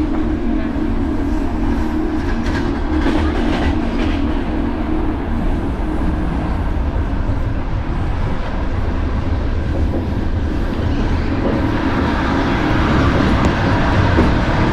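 Sleeper train carriage running on the rails: a steady rumble with a few short knocks a few seconds in, swelling slightly near the end.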